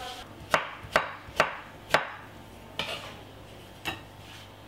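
Chef's knife chopping cucumber on a wooden chopping board: four sharp knocks about half a second apart, then two softer knocks.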